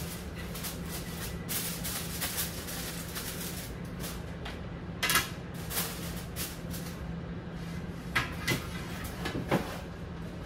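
Kitchen handling sounds: a few sharp knocks and clatters, about halfway through and again near the end, over a steady low hum.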